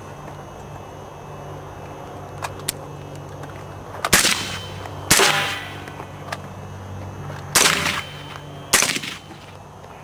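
Mk12 5.56 mm rifle fired through an AAC SPR/M4 suppressor: four shots, two about a second apart starting about four seconds in, then two more about a second apart near the end, each a sharp crack with a short ringing tail.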